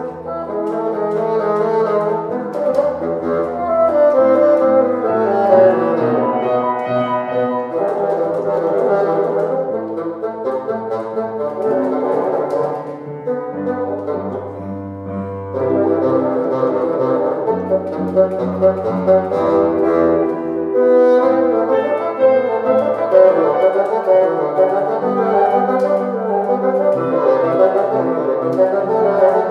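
Bassoon and piano playing together: the bassoon carries a melodic line of quickly changing notes, some low and some high, over the piano accompaniment, with no break.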